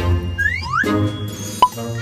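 Playful background music, with two quick rising whistle-like glides about half a second in and a sharp click with a brief ding about one and a half seconds in.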